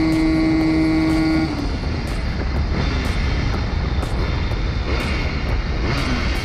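Simson moped's tuned 85 cc two-stroke single with an expansion-chamber exhaust, held at high revs as a steady high-pitched drone. About a second and a half in the throttle is shut and the drone cuts off, leaving a rushing noise with the engine falling away faintly.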